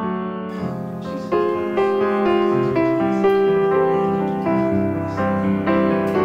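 Background piano music: a slow melody of held notes over a lower accompaniment, swelling louder about a second in.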